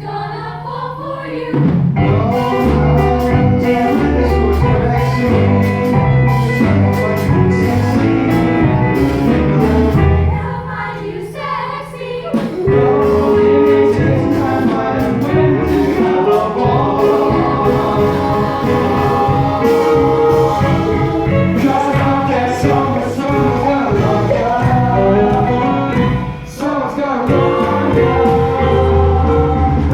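A musical-theatre song: a chorus of voices singing together over an instrumental accompaniment.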